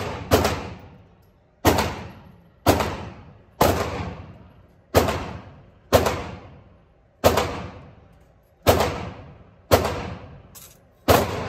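Gunshots fired one at a time, about eleven of them at roughly one a second, each sharp crack followed by a long echoing tail in an indoor firing range.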